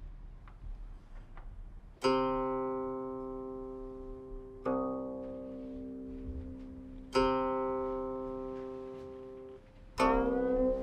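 Guqin plucked: four notes about two and a half seconds apart, each ringing out long and fading slowly. The last, near the end, slides upward in pitch.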